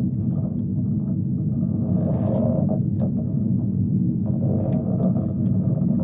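Steady low rumbling drone, an added sound-effects bed under slow-motion footage of bubbles swirling in oil. Airy whooshes swell over it about two seconds in and again near the end.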